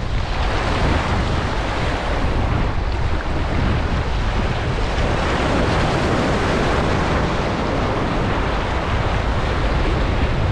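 Surf washing over shoreline rocks, with wind buffeting the microphone.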